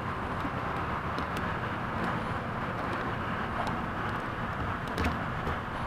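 Steady background hiss and rumble of outdoor ambience, with a few faint clicks and a small knock about five seconds in.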